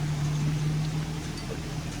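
A steady low hum of a running engine or motor, held at one pitch, over a soft even hiss.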